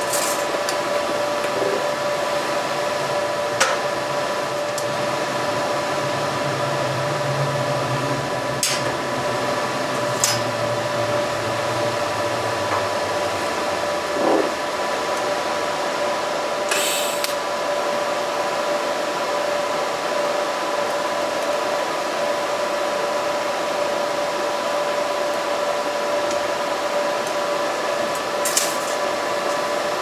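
TIG welding stainless steel spoons: a steady hiss with a faint hum, broken by a few short crackles.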